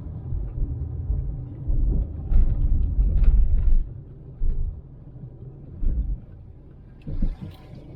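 Uneven low rumble of a car on the move, heard from inside: road and wind noise that is loudest a couple of seconds in and quieter in the second half.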